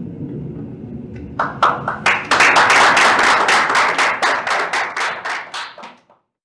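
Audience applause: a few scattered claps about a second in, building quickly into dense clapping that thins out and cuts off abruptly near the end.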